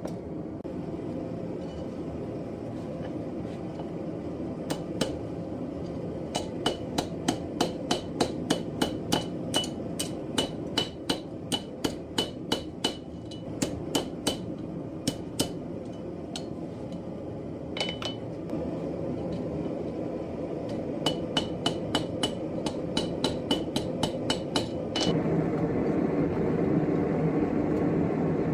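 Hammer striking hot steel round stock on an anvil in quick runs of about three blows a second, each blow ringing, with short pauses between runs, over a steady rumble. Near the end the hammering stops and the rumble gets louder.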